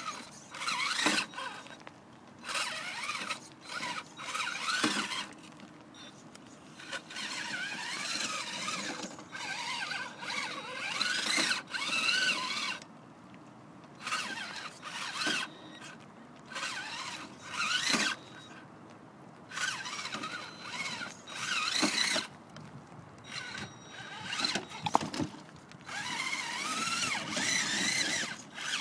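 Traxxas Summit RC crawler's electric motor and geartrain whining in low gear, in repeated throttle bursts of a second or two with short pauses between. The pitch wavers up and down with the throttle. A few sharp clicks and knocks come from the truck on the rock.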